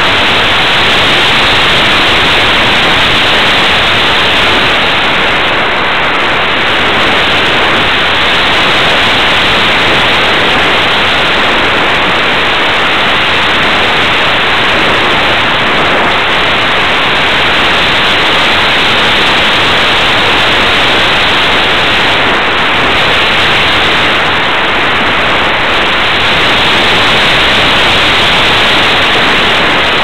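Loud, steady rush of airflow over the microphone of a small camera riding on a slope glider in flight.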